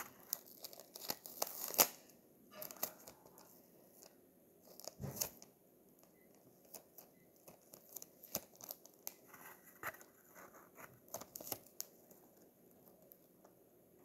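Clear sticky tape being pulled, torn and handled: short rips and crinkles at irregular intervals, the loudest a little under two seconds in.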